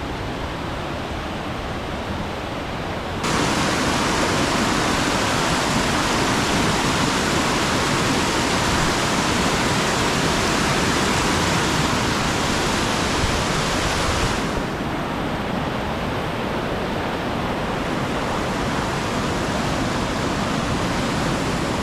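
Waterfall rushing, a steady roar of falling water. It jumps louder suddenly about three seconds in and eases back somewhat about two-thirds of the way through.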